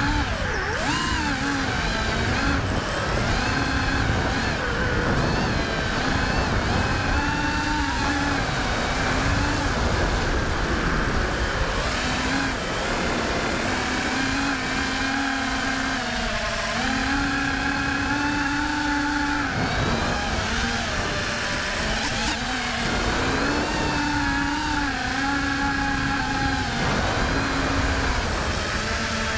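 FPV racing quadcopter's brushless motors and propellers whining in flight. The pitch holds for a second or two and then steps up or down as the throttle changes, over a constant rushing noise.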